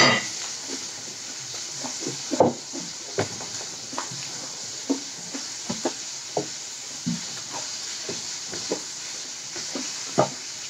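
Crunchy fried chicken being chewed close to the microphone: irregular short crunches, one or two a second, over a steady hiss.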